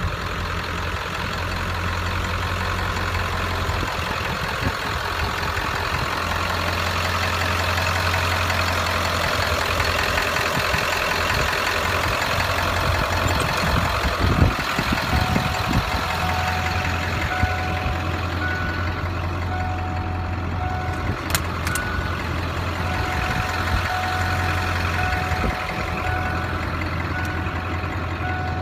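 1996 Ford F250's 7.3 Powerstroke turbo diesel V8 idling steadily. About halfway through, a repeating electronic beeping chime starts, and there is a sharp click a few seconds later.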